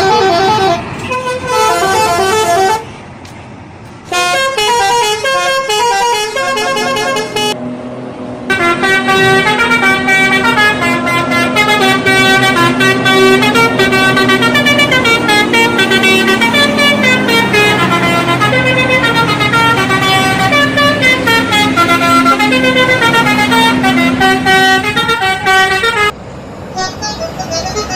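Indonesian bus telolet horns, multi-note air horns, playing quick stepping tunes. There are several short bursts of melody, then a long one from about eight seconds in over a steady lower note, with the sound dropping in level near the end.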